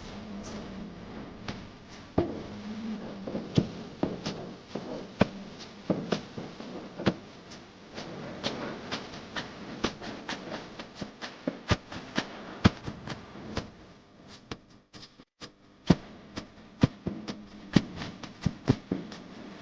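Irregular sharp clicks and light taps, several every second, like small objects being handled and set down.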